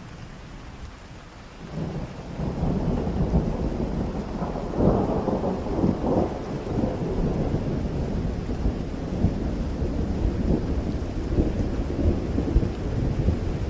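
Rain falling, with a long low rumble of thunder that breaks in just under two seconds in and rolls on, loudest around five seconds in.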